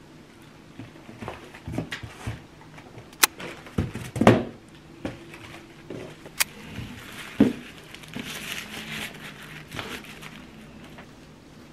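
Small wrapped packages being set down and shuffled into a cardboard box: scattered soft thuds and taps, two sharp clicks, and a stretch of rustling and sliding about eight seconds in.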